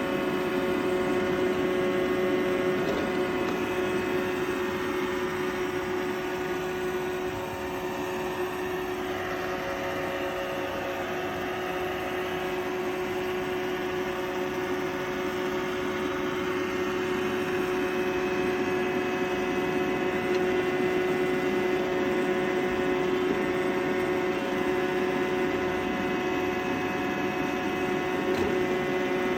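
Roomba robot vacuum running: a steady motor whir with a held whine over a noisy hiss, dipping slightly in loudness partway through.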